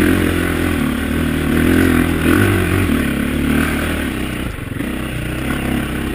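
Dirt bike engine running and revving under load over rough trail obstacles, with rattling from the bike. The engine dips briefly about four and a half seconds in, then picks back up.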